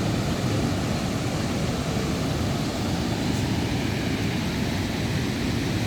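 Steady rushing roar of the Manavgat waterfall, an even wash of noise that is heaviest in the low end and never lets up.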